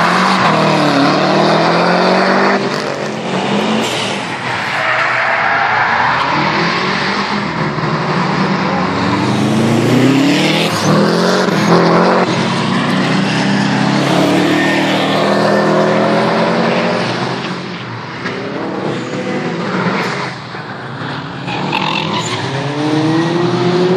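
Subaru Impreza WRX STI's flat-four engine revving hard, the pitch climbing and dropping back again and again through gear changes as the car is driven around a wet circuit. It fades somewhat for a few seconds near the end as the car gets farther away, then rises again.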